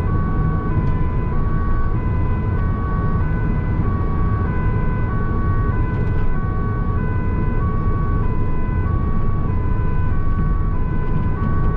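Two-tone emergency siren of an incident-response van, alternating evenly between a high and a low note, heard from inside the cab over the van's engine and road rumble. The van is driving on priority to an emergency.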